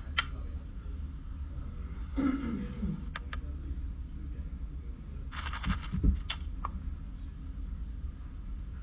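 Scattered light clicks and taps from handling makeup brushes and an eyeshadow palette, picked up close by a clip-on microphone over a steady low hum. A short falling glide sounds about two seconds in and a brief rustle a little after five seconds.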